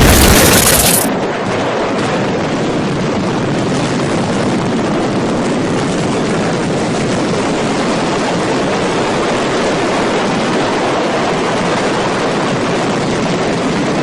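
Explosion sound effect: a very loud blast that eases off about a second in into a steady, dense roar that carries on unbroken.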